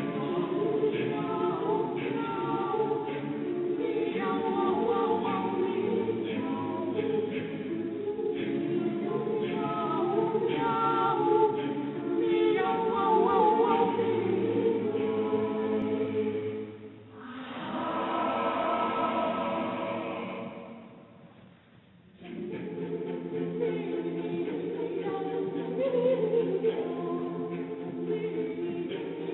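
Background music: a choir singing a cappella in sustained chords, fading out briefly about three quarters of the way through and then starting again.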